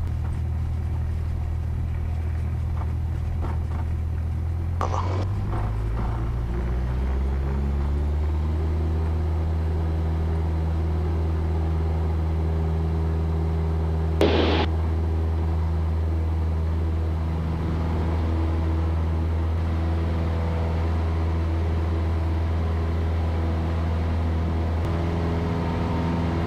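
Cessna 172 Skyhawk's piston engine and propeller rising in pitch to takeoff power about five to eight seconds in, then running steadily at high power. A short sharp click about fourteen seconds in.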